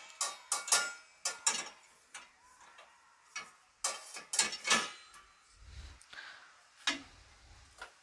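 A stainless steel kadhai being set into a dishwasher's lower wire rack, knocking against the rack and the stacked steel plates. A string of sharp metallic clanks and clinks, several ringing briefly.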